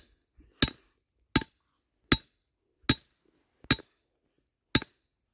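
Hammer striking the head of a steel trap stake, driving it into clay ground: about seven sharp metallic clinks, one roughly every three-quarters of a second, each with a short ring.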